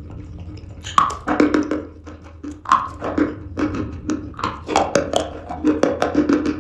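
Chalk being bitten and chewed close to the microphone: a quick irregular run of crisp crunches and crackles, beginning about a second in.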